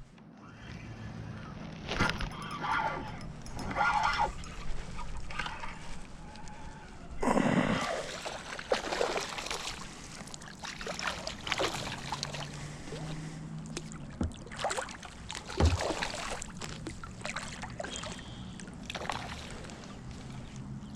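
Water sloshing and splashing around a fishing kayak, with scattered knocks and handling noises at irregular intervals and a louder surge of water about seven seconds in.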